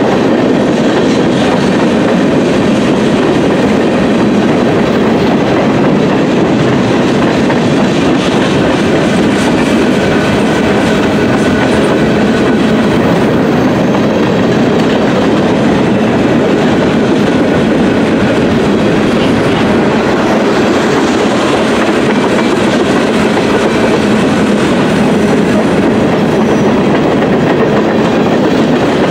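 Freight train cars (boxcars, tank cars and covered hoppers) rolling past close by: a steady, loud rumble and clatter of steel wheels on rail.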